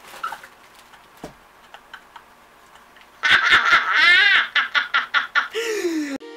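A woman bursts into loud, excited laughter and squeals about three seconds in, in quick rhythmic peals, ending in a falling squeal. Music starts abruptly just at the end.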